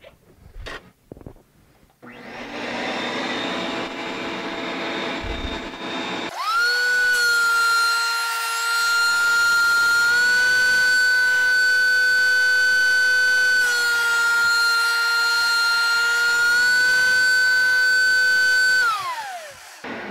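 A shop vacuum starts up and runs. A few seconds later a DeWalt benchtop thickness planer's motor starts over it with a loud, high whine. The whine sags slightly in pitch twice as boards are fed through and cut, then falls in pitch as the planer spins down near the end.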